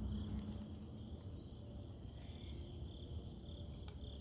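Insects such as crickets trilling steadily in the background, with a higher-pitched insect call in short repeated phrases about once a second.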